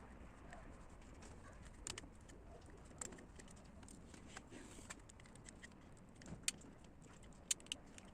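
Scattered light clicks and taps of small hard objects over a faint steady hiss, with a few sharper single ticks in the second half.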